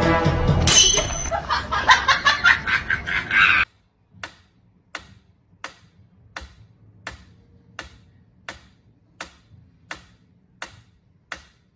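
Background music cuts off about three and a half seconds in. Then a mechanical pendulum metronome ticks steadily, a little under one and a half ticks a second.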